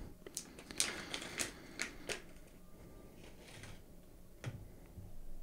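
Faint, irregular light clicks and rattles of small screws being picked through and handled.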